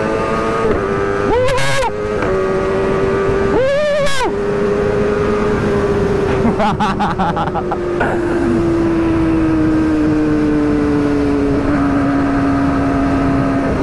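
Sport motorcycle engine running steadily while riding, with wind noise; its pitch sinks slowly over the second half as the bike eases off. Other engines rise and fall briefly in pitch twice in the first few seconds.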